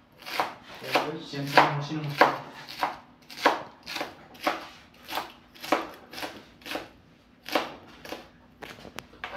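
Kitchen knife chopping a cabbage on a wooden cutting board: steady crisp strokes about two a second, with a short pause about two-thirds of the way through.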